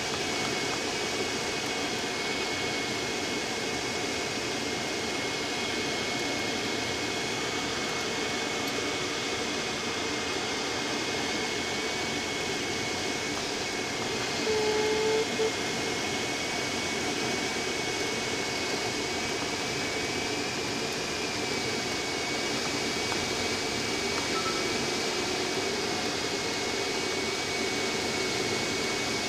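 Steady rush of airflow over a Speed Astir glider's canopy and airframe in gliding flight, with a thin steady high tone underneath. A brief beep sounds about halfway through.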